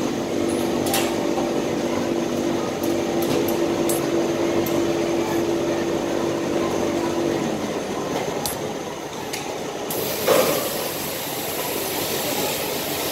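Industrial steam iron and pressing table at work: a steady machine hum stops about seven seconds in, with light clicks now and then. About ten seconds in, a steady hiss of steam starts, with a sharp thump just after.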